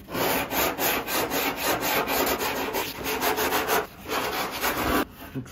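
Hand sanding of cured epoxy filler on a windsurf board's nose with coarse 80-grit sandpaper on a block: quick back-and-forth scratchy strokes, about four a second, that stop about five seconds in.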